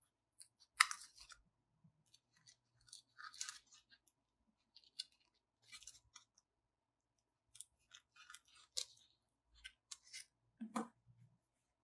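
Scissors snipping the edge of a thick foam sheet, trimming off the pen-marked excess: short, quiet snips at irregular intervals. Near the end there is a slightly fuller soft knock.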